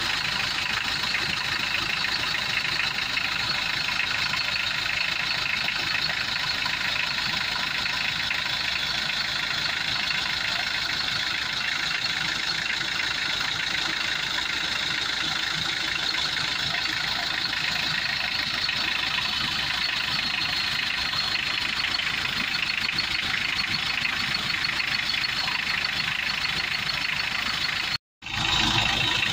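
Mitsubishi L200's 4D56 four-cylinder turbodiesel idling steadily with the hood open. The sound drops out for a moment near the end.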